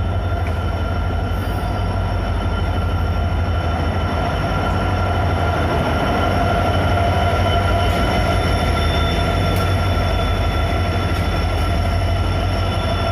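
Tutari Express passenger train running steadily on the rails: a constant heavy low rumble with several thin, steady high tones over it.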